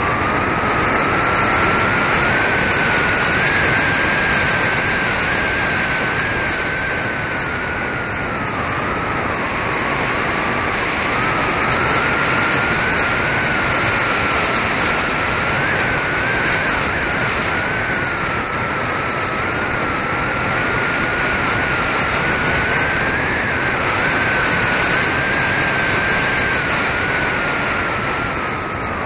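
Electric motor and propeller of an Avios Super Tucano 1600mm RC model plane heard from on board in flight: a steady whine that rises and falls in pitch with the throttle, over rushing wind noise, dropping in pitch near the end as the throttle comes back.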